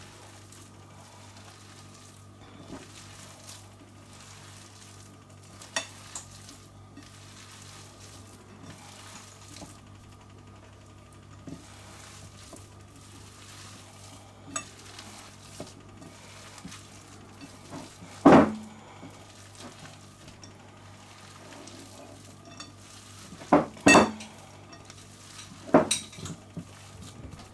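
Bare hands kneading raw minced beef with egg and onion in a glass bowl: soft wet squelching and crackling, broken by a few sharp knocks, the loudest about two thirds of the way through and two more near the end.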